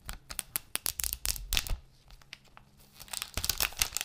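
Plastic wrap on a new iPhone box being torn off and crinkled right up at the microphone: a dense run of sharp, irregular crackles and rips, in two bunches.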